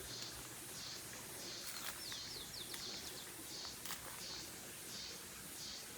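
Wild birds calling in woodland: a high chirp repeated about twice a second throughout, with a quick run of short, falling high notes about two seconds in. A few faint clicks sound as well.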